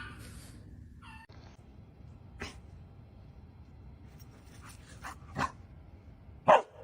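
A dog giving a few short, spaced barks, the last and loudest one near the end.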